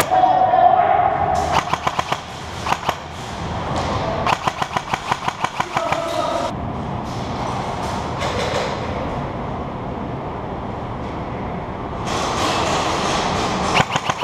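Airsoft electric rifles firing in short full-auto bursts, each a rapid string of sharp clicking shots. The longest burst comes about four seconds in and another near the end.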